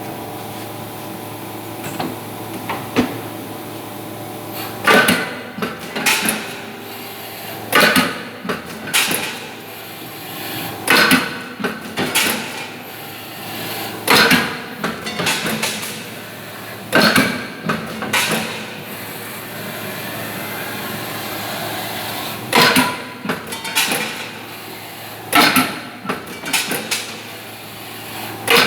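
CNC punch press punching sheet metal: sharp metallic bangs in groups of one to three about every three seconds over a steady machine hum, with a few lighter knocks before the strokes begin about five seconds in.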